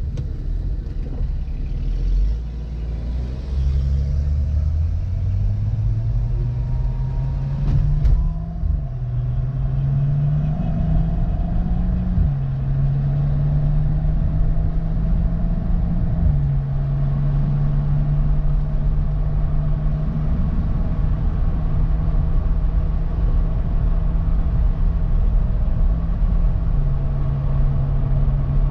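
BMW 135i's N55 turbocharged straight-six, heard from inside the cabin, accelerating hard through the gears. The engine note climbs and drops back sharply at each upshift, twice in the first half, then holds a fairly steady note at speed, easing down twice later on.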